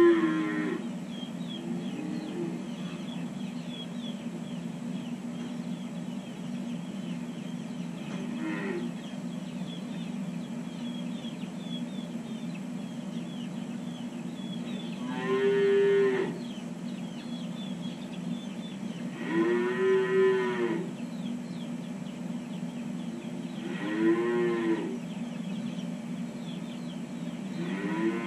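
Holstein calves mooing in their pens: about seven calls a few seconds apart, the loudest around the middle, with one long drawn-out call. A steady low hum runs underneath.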